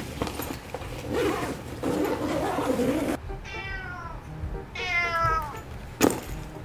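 Domestic cat meowing twice in long, falling yowls, the protest of a cat being shut into a pet carrier. Before the calls, a rustling of the fabric carrier being handled; a sharp knock near the end.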